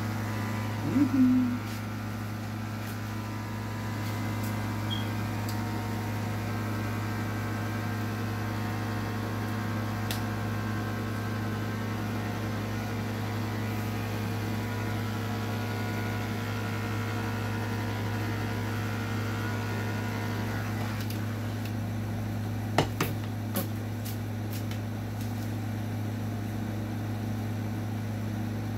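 Corded electric pet clippers running with a steady, even buzz while trimming a small dog's head and face. A brief higher-pitched sound stands out about a second in, and a few sharp clicks come near the end.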